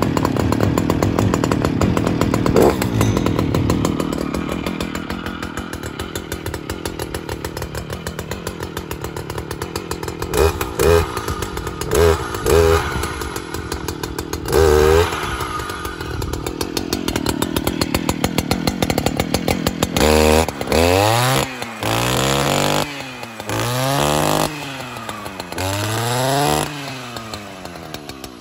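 A brand-new Stihl FS 561 C-EM brush cutter's two-stroke engine running on its first start. It runs fast for the first few seconds and then settles to idle, is blipped a few times, and is then revved up and down hard about five times before it drops back to idle near the end.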